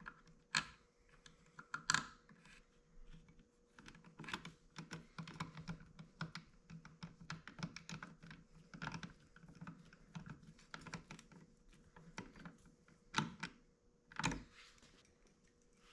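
Light, irregular clicks and taps of small hand-tool work on a plastic mirror housing as two small T8 Torx screws are driven into a turn signal with a Torx key, with a few louder taps, over a faint steady hum.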